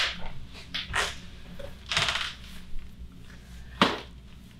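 Short rustling and handling noises of a treatment session: hands, clothing and the table. One longer rustle comes about two seconds in, and a single sharp click comes near the end.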